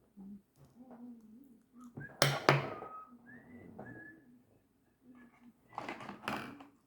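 A sharp clatter about two seconds in, followed by a few short, high whistled notes. Faint low humming sounds run underneath.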